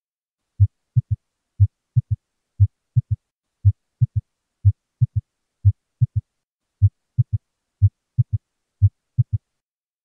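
Recorded heart sounds with an S3 gallop: short, low thumps in groups of three per heartbeat, a single beat and then a close pair, repeating about once a second. The extra third sound gives the 'sloshing in' rhythm of a third heart sound (S3). The beats stop about nine and a half seconds in.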